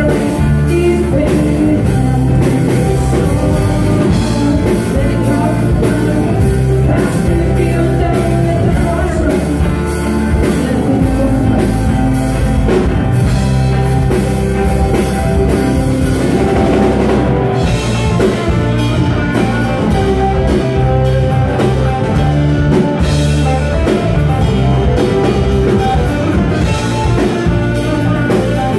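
Live rock band playing loud, with drum kit, electric guitar and keyboards, heard from the audience.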